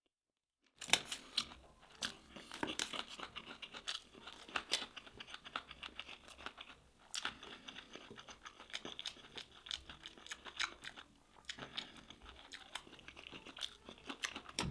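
Close-up crunching and chewing of crispy nut-coated fried fish. Rapid, irregular crackles start about a second in and go on throughout, with brief lulls.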